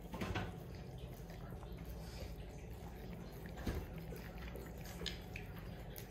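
Golden retriever licking and eating a soft cream dog cake off a plate: faint wet licking and smacking, with a few small clicks.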